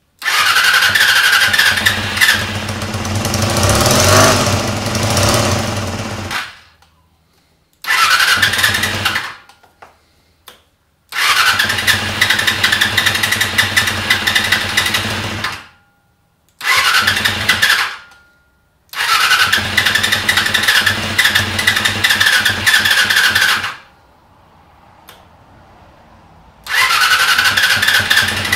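Honda CBR250R MC19's electric starter cranking its four-cylinder engine in six separate bursts, each starting with a rising starter whine and stopping abruptly, with pauses between. The repeated long cranking is a hard start: the engine turns over without settling into running, enough to risk overheating the starter motor.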